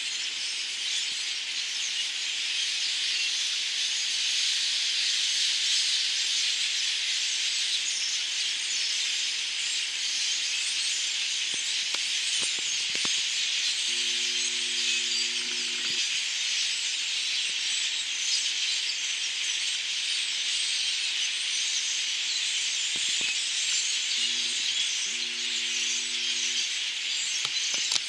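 A large flock of migrating birds calling all at once in a dense, continuous high-pitched chatter. A low steady tone sounds briefly twice, about halfway through and near the end.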